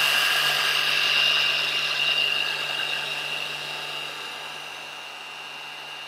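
Small electric mini chopper running without a break, blending cashew-nut pesto with added oil: a steady motor whine that grows gradually quieter over the second half.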